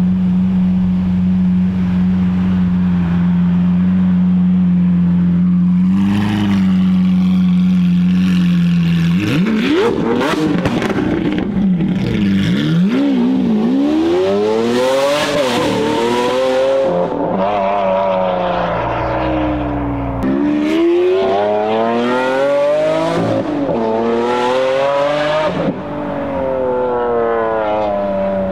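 Lamborghini Aventador's V12 through a straight-piped Akrapovič exhaust. It drones at a steady pitch for about nine seconds, then revs and accelerates hard, its pitch climbing in long sweeps that drop back at each gear change and climb again.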